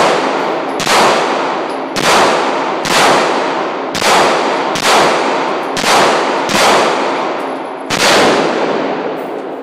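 Handgun fired in a steady string, about eight shots roughly a second apart, each crack followed by a long echoing tail that fades before the next.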